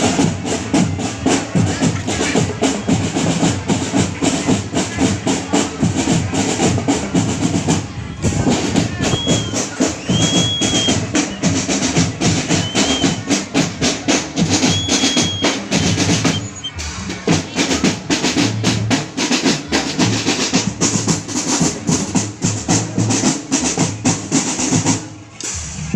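Marching drum band playing: snare and bass drums beating fast, dense rhythms with rolls. Around the middle, a few short high tones like blasts on a whistle sound over the drums, and the sound briefly drops out a few times.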